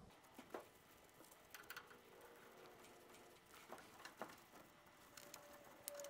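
Near silence with a few faint, scattered clicks and taps as gloved hands handle a filter drier against copper refrigerant tubing, and a faint thin tone near the end.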